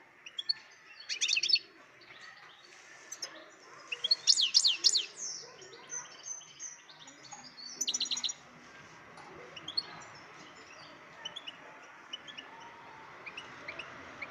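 European goldfinch singing: dense bursts of rapid, high twittering chirps about a second in, around four to five seconds and around eight seconds, with scattered softer single notes between them.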